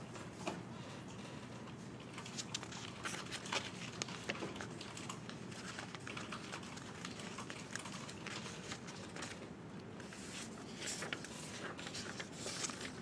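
Sheets of paper rustling as they are handled and flipped over on a clipboard, with scattered light clicks and taps.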